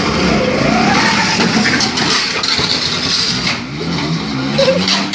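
Motor scooter engine revving hard, its pitch rising about half a second in.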